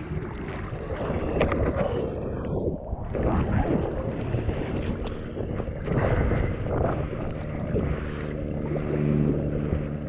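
Ocean water sloshing around a surfboard at water level with wind on the microphone, under the steady drone of a small propeller plane towing a banner overhead. The sound goes briefly muffled about two and a half seconds in.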